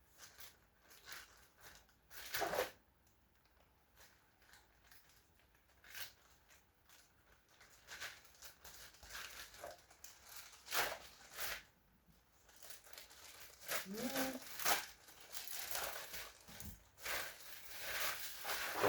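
Parcel packaging being crinkled and torn open, partly with the teeth: irregular rustles and rips, sparse at first and busier over the last few seconds.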